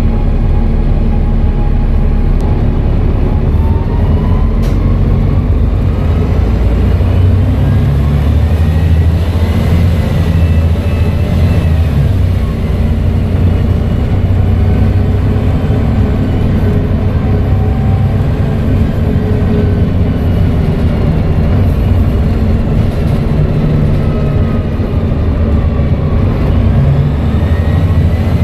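Volvo B7TL bus's six-cylinder diesel engine running under load, with a turbo whistle rising in pitch as the bus accelerates, twice.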